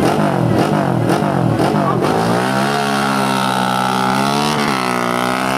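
Classic 500 cc racing motorcycle engine revved up and down repeatedly on the start line, then held at high revs under hard acceleration. Its pitch climbs steadily, with a brief drop near the end as at a gear change.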